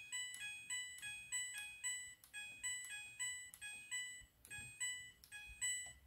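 Midea front-loading washing machine's control panel beeping as the program selector dial is turned: a quick run of short electronic tones of varying pitch, about three or four a second, with a brief pause about four seconds in.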